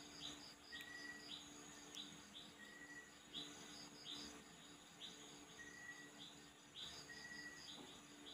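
Near silence with faint, evenly repeated high chirps in the background, about two a second, and now and then a brief steady note.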